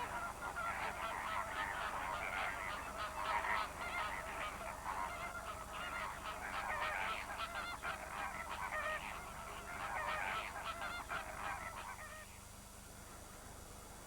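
A greater flamingo colony calling: a dense chorus of many overlapping goose-like honks that cuts off abruptly about twelve seconds in, leaving only a faint hiss.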